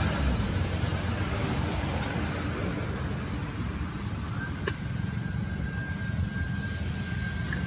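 Steady outdoor background noise: a low rumble with a hiss above it. A faint thin whistle-like tone comes in about halfway through, and there is one short click a little after it.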